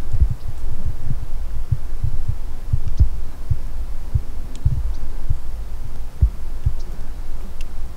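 Irregular low thumps and rumble on the microphone, several a second at uneven spacing, with a few faint high ticks.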